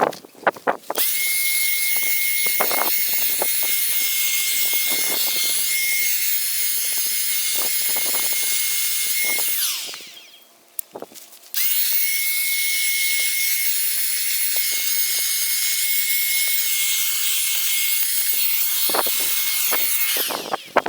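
Parkside 20V cordless handheld vacuum cleaner running: a steady high whine over a rushing air hiss, with scattered clicks and rubbing. It winds down about halfway through, then switches on again about a second and a half later and runs until shortly before the end.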